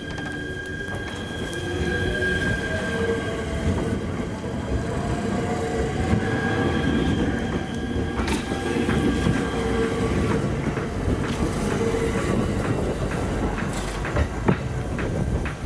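Train running on the line, with a steady high-pitched wheel squeal and a tone that slowly rises in pitch through the middle. Wheels clack over rail joints, more often near the end.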